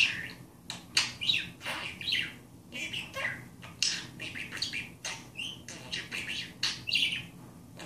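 Budgerigar chattering in a quick, irregular run of short chirps and squawks.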